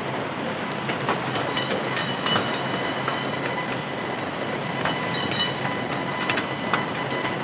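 Steady mechanical noise with high, steady squealing tones and scattered metallic clicks.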